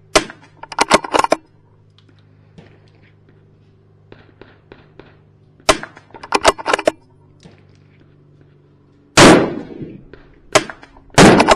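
.22 LR rifle shots a few seconds apart, each of the first two followed within a second by a quick run of small clicks. Near the end come two louder reports with a longer ring after them.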